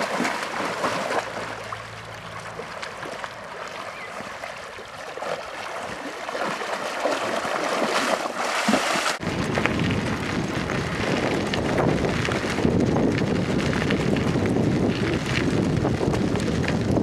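Water splashing and sloshing as a Haflinger horse wades through a lake. About nine seconds in, this cuts abruptly to loud wind buffeting the microphone, a steady low rumble.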